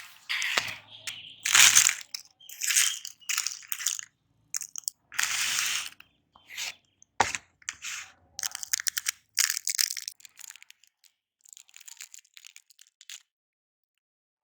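Meat grinder crushing hard, brittle candy: irregular bursts of crunching and cracking that stop about thirteen seconds in.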